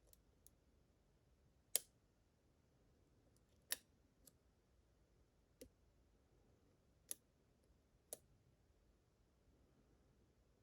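Faint, sharp clicks of a lock pick working the pins of a Goldilox pin-tumbler challenge lock: about five separate clicks one to two seconds apart over near silence.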